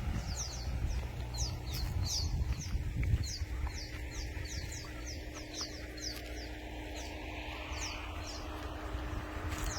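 A small bird calling with a quick series of short, high chirps, about two a second, over a steady low rumble.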